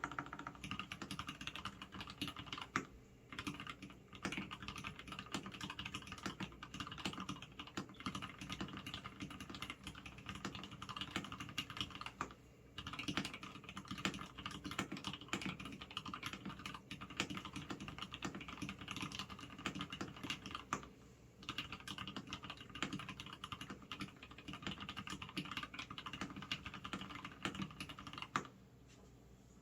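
Fast continuous typing on a custom 65% keyboard with a polycarbonate case, stainless steel plate and lubed Gateron red linear switches, keys clacking densely, with brief pauses about 3, 12 and 21 seconds in and the typing stopping just before the end.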